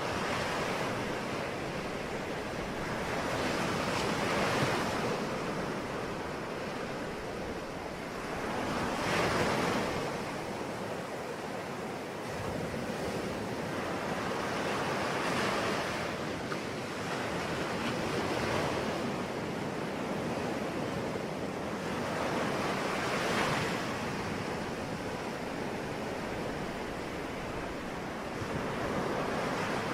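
Ocean waves breaking and washing ashore, a steady rush of surf that swells every few seconds.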